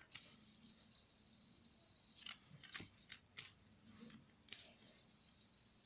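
Light-up fidget spinner whirring faintly as a steady high hiss. The hiss drops out for about two seconds midway, with a few light clicks of fingers handling the spinner, then returns.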